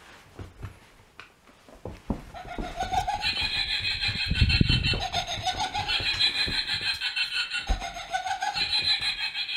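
Novelty laughing bag (laugh-box toy) set off, playing a recorded cackling laugh through its small speaker in repeated bursts, starting about two seconds in. A few dull knocks come as the toy is knocked about, loudest around the middle.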